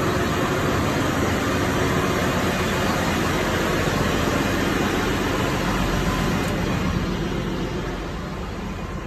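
Steady, loud machinery noise of an engine room, the running machinery blending into one even noise; it drops a little about seven seconds in.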